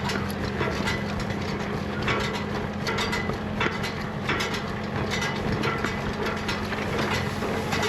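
Farm tractor engine running steadily, with irregular rattling and clanking from the machinery working alongside it.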